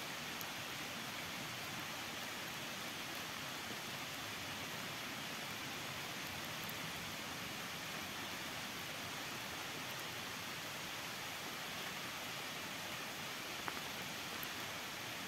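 Steady, even rushing hiss of forest ambience, with one faint short click near the end.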